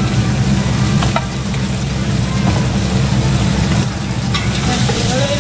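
Meat sizzling and frying in a pot while a metal ladle stirs it, over a steady low hum.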